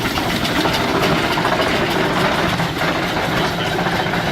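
1925 Case 50 hp steam traction engine running steadily, a continuous even mechanical sound.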